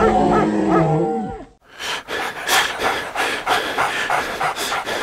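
A wavering pitched sound that slides down in pitch and stops about a second and a half in. It is followed by a dog's rhythmic panting, two or three quick breaths a second.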